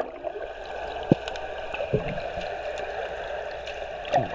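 Muffled underwater sound as the camera is held beneath the pool's surface: a steady dull wash of water with gurgling and a few soft knocks.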